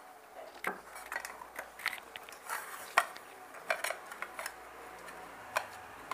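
Square metal cake tin and round metal plate clinking and knocking together in scattered clicks as the plate is laid over the tin and the tin is turned upside down onto it to release the cake.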